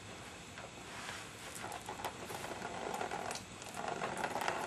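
Faint handling sounds: scattered light clicks and knocks, with two short rustling stretches.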